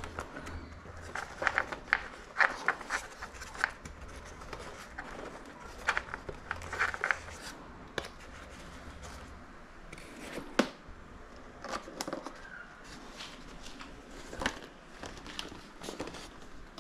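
Hands handling the plastic and foam parts of an FMS F-18F RC model jet: irregular small clicks, taps and light rustling, with a sharper click about ten seconds in.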